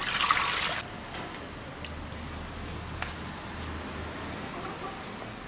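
Water poured from a stainless steel bowl splashes over blocks of tofu in a steel bowl, loud for under a second at the start. Then faint sloshing as hands move the tofu in the water, with a small knock about three seconds in.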